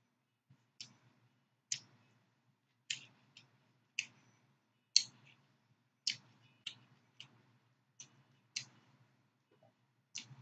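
Close-up chewing of raw vegetables: crisp lettuce, carrot and pepper strips crunching between the teeth, in sharp crunches about once a second.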